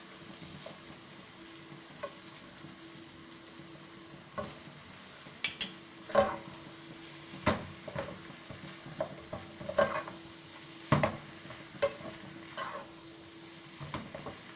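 Plastic spoon stirring and tossing vegetable pulao in a pan on a low flame, with short scrapes and taps against the pan about once a second from about four seconds in, over a faint sizzle and a steady low hum.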